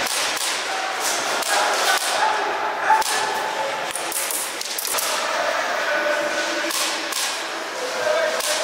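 Airsoft guns firing, with irregularly spaced sharp snaps throughout.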